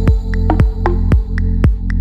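Background electronic music with a steady beat of about two kick drums a second over a held bass and synth chords, with light hi-hat ticks.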